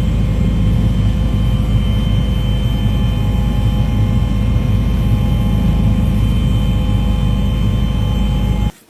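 Loud, steady aircraft engine noise with a deep rumble and a constant high whine, cutting off abruptly near the end.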